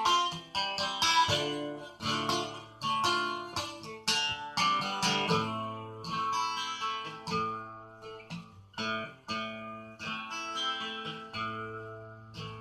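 Steel-string acoustic guitar strummed in chords, each stroke ringing on, with the playing thinning to sustained, fading notes near the end.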